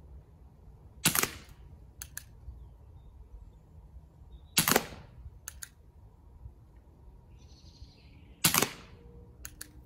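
Three shots from a CO2-powered airsoft Schofield revolver, about three and a half seconds apart, each followed about a second later by a pair of light clicks.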